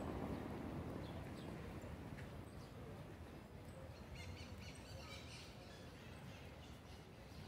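Faint outdoor background hum with small birds chirping in the trees, a cluster of short chirps around the middle.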